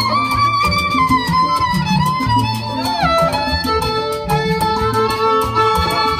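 Live Latin band playing an instrumental passage: a high melody with sliding, bending notes over a repeating bass line and percussion.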